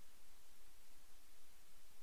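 Faint steady hiss with a low hum underneath: background noise of the recording, with no distinct sound.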